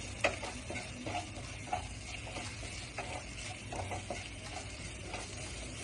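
Wooden spatula stirring and scraping a thick spice masala with fried onions and whole spices in ghee in a nonstick kadai, with a faint sizzle and light scrapes and knocks of the spatula against the pan every so often.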